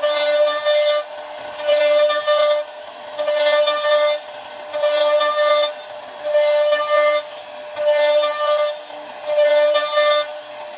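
CNC router spindle whining at a steady high pitch as its bit routes grooves into a wooden door panel, growing louder in regular surges about every second and a half as the cutter bites into the wood.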